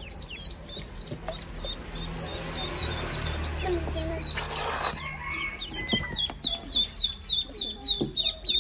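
Ducklings peeping continuously: a rapid string of short, high, downward-falling cheeps, about three or four a second. A brief burst of noise cuts in about halfway through.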